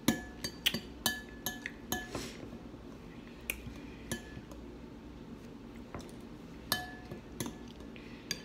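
Metal spoon clinking and scraping against a glass bowl of oatmeal while stirring, with a short ring after each tap. A quick run of clinks comes in the first two seconds, then single clinks every second or so.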